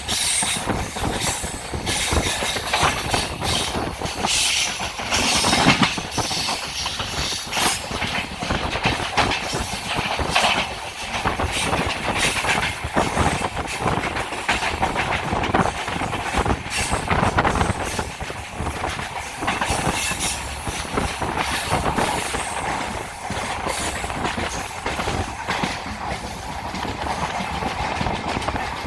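Moving passenger train heard from on board: a steady rumble and rattle, with irregular clicking and knocking of the wheels over the rails.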